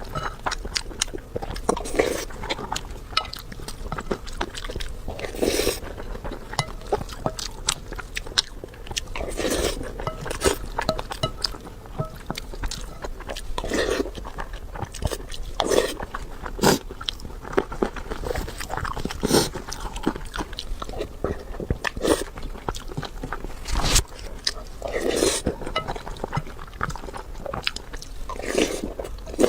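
Close-up eating sounds: chewing and biting, with many sharp clicks and crunches, and a louder wet mouth sound every few seconds.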